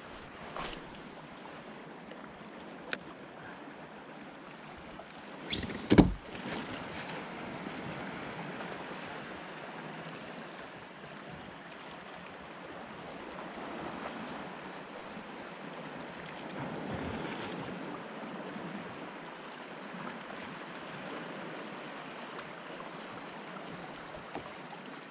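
Water lapping and rippling against a kayak hull in a tidal current, with a sharp click about three seconds in and a loud, deep knock about six seconds in.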